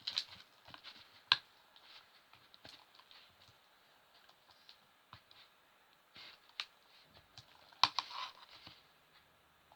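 Glue-and-Perwoll slime being mixed by hand: faint scattered wet clicks and squelches as the mixture thickens into slime, with a sharper click about a second in and a short sticky cluster near the end.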